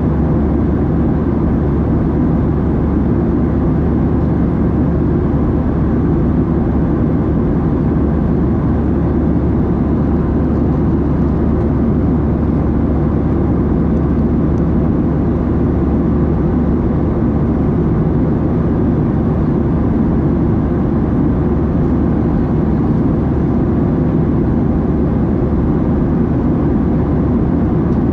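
Steady cabin noise inside a Boeing 737-700 in flight: the low rush of its CFM56-7B jet engines and the airflow past the fuselage, holding an even level throughout.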